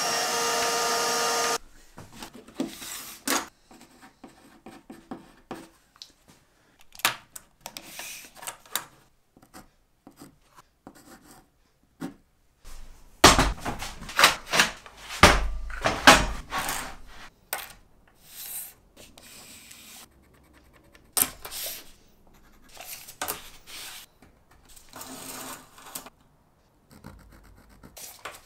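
A vacuum hose runs briefly and cuts off abruptly. It is followed by workshop handling sounds: wooden panels and tools being rubbed, shifted and set down on a work stand, with scattered knocks that are loudest and thickest in the middle.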